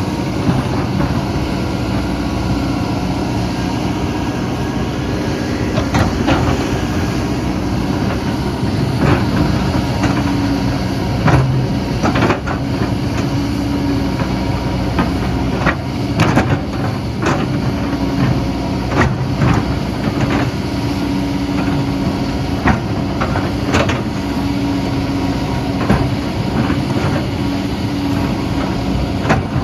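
Excavator's diesel engine running steadily under work, with frequent sharp metallic knocks and clanks scattered throughout.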